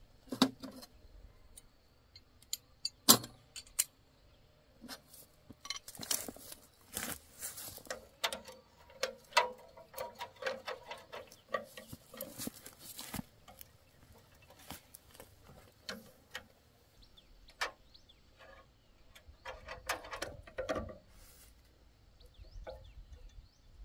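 Metal tools and parts being handled during tractor repair work, clinking and knocking irregularly with stretches of rubbing or scraping. The loudest is a sharp knock about three seconds in.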